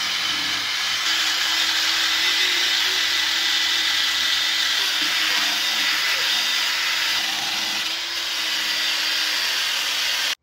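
Ryobi cordless drill spinning a nylon wire brush wheel against wood: a steady motor whine under a loud, scratchy scrubbing of bristles sanding the carved table legs.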